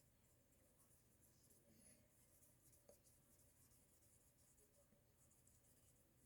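Near silence with faint, repeated rubbing strokes: excess oil pastel being wiped off aluminium tape on a model's skin, along the grain of the metal.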